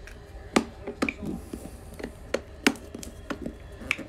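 A utility knife and hands clicking and knocking against an aluminium card-box case as its seal stickers are cut: about eight irregular sharp clicks, the loudest about half a second in and again past the middle.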